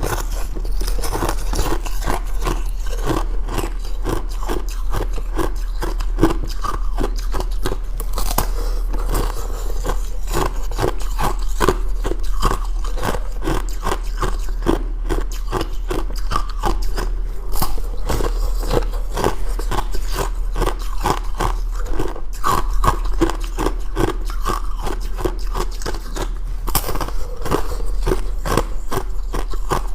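Ice being chewed close to the microphone: rapid, steady crunching as the cubes are bitten and ground between the teeth.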